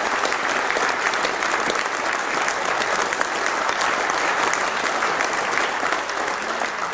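A large audience applauding: a dense, steady round of clapping.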